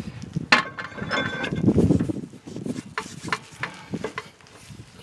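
Cast-iron brake rotor being slid onto the hub studs over the parking brake shoes: a knock, a stretch of scraping and rubbing, then a few light metallic clicks as it seats.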